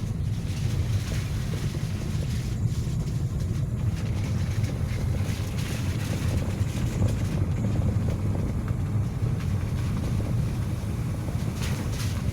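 Vehicle driving on a road in the rain: a steady low rumble of engine and tyres under a hiss of rain and wind, with a few light taps.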